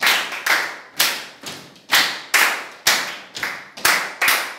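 A group of people clapping hands together in unison in a repeating rhythm, about two claps a second, some coming in quicker pairs.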